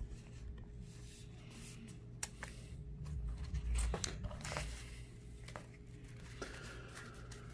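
A stack of 1987 Fleer cardboard baseball cards handled and sorted by hand: scattered soft clicks and rustles as the cards slide and tap against each other, with a few dull handling bumps about three to four seconds in.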